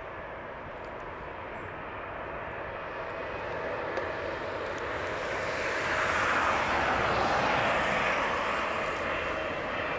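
Jet airliner engine noise, a steady rush with a faint whine that swells to its loudest about six to eight seconds in, then eases a little.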